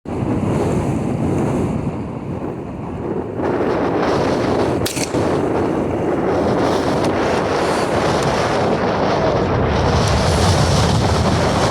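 Wind buffeting the microphone: a steady, loud rushing noise, with a single short click about five seconds in.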